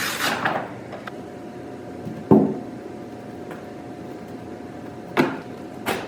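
Trade-show booth parts being taken apart and handled: a rustling scrape, a loud thump about two seconds in, and two sharper knocks near the end, over a faint steady tone.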